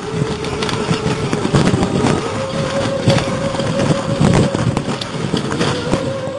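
Enduro motorcycle engine running steadily, its note stepping up about two seconds in, over repeated sharp knocks and clatters from the bike on rough ground.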